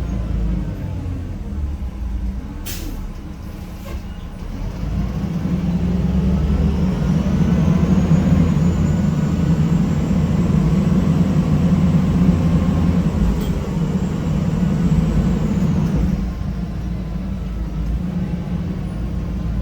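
Inside a 1993 Gillig Phantom transit bus, its repowered Cummins ISM inline-six diesel running with a steady low hum. It gets louder from about six seconds in, as a faint high whine rises over it, then eases back about sixteen seconds in. A couple of sharp clicks come a few seconds in.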